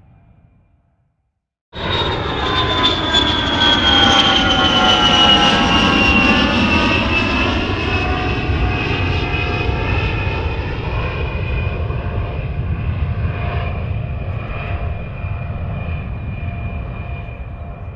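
Jet aircraft passing: a loud engine rush starts abruptly about two seconds in, its whine falling in pitch over the next few seconds, then slowly fading away.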